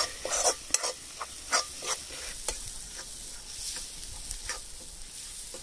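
Onion-tomato masala sizzling in oil in a kadhai. It is being stirred, with irregular scrapes and knocks of the stirring utensil against the pan, most frequent in the first half and thinning out toward the end.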